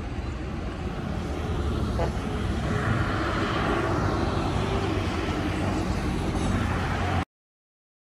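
Diesel engines of a Caterpillar 313C tracked excavator and a small crawler bulldozer running under load as they dig and push soil, with a swell of louder noise about three seconds in. The sound cuts off suddenly near the end.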